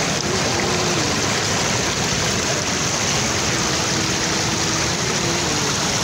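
River water rushing and splashing over rock ledges at the brink of a waterfall: a steady, loud rush of white water that does not let up.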